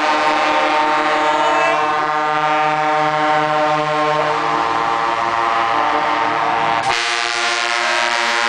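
Truck air horns blown in a long, held chord as a convoy of trucks passes close by. The chord shifts a couple of times, and near the end a different set of horn notes takes over.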